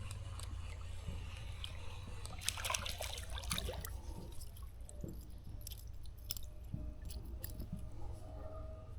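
Faint wet handling noises: scattered small clicks, rustles and squishing with a few drips of water, busiest about two and a half seconds in, over a low steady rumble.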